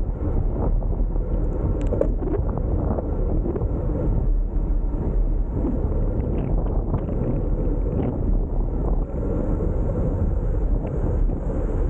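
Wind rushing over the camera's microphone while cycling along a road, a steady low rumble with a few faint ticks.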